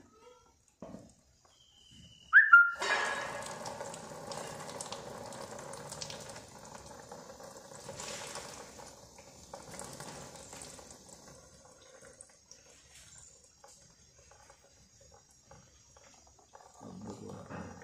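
Silver-dip cleaning liquid poured from a bottle, splashing over a silver ornament and into a plastic tub. The splashing starts just under three seconds in and fades out after about ten seconds. Just before the pour there is one brief, loud high squeak.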